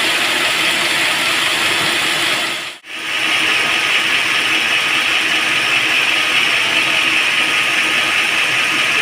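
Sawmill band saw running through teak wood, a steady rushing, grinding noise that cuts out briefly about three seconds in, then carries on.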